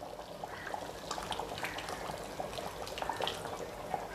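Ground coconut paste being poured from a bowl into a pot of simmering curry: quiet wet plops and bubbling, with many small soft pops.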